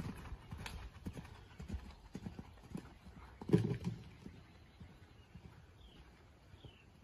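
Horse cantering on sand arena footing: a rhythm of dull hoofbeats that fades as the horse moves away, with one louder thump about three and a half seconds in.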